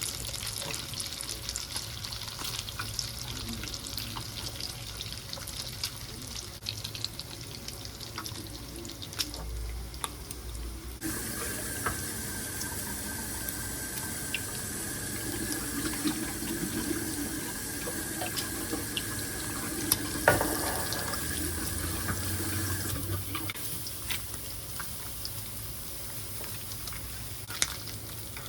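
Bacon crackling and sizzling in a frying pan. From about eleven seconds in, water runs steadily into a sink for about twelve seconds over it, with a single knock near the end of the running water.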